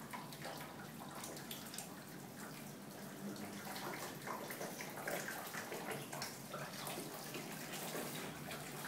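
Water running from a wall-mounted waterfall spout into a bathtub: a steady, even rush with faint irregular drip-like ticks.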